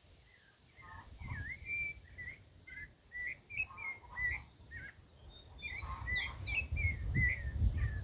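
A thrush singing a long run of short, varied whistled phrases, with a few higher sweeping notes about six seconds in. A low rumble builds under the song over the last few seconds.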